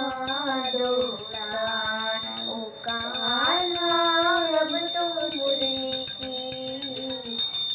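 Small brass hand bell rung rapidly and steadily for aarti, its high ringing breaking off for a moment about two and a half seconds in, over a voice singing a devotional aarti hymn.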